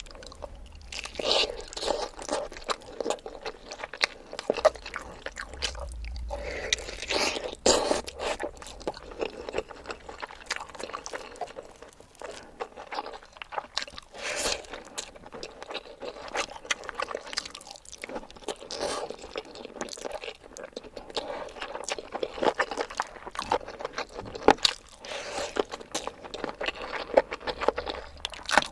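Close-miked eating sounds: chewing and crunching on handfuls of rice topped with crispy fried onions and curry, with small biting crackles throughout.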